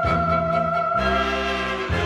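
Orchestral music: held high notes over a low bass line, with the harmony shifting about a second in.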